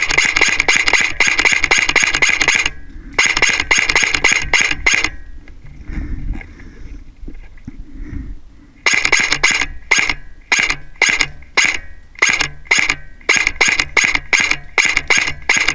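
Rapid mechanical clicking from airsoft gear, in long runs at first and then in many short half-second bursts, with a steady high whine under the clicks. A lull of a few seconds in the middle carries only low rumbling.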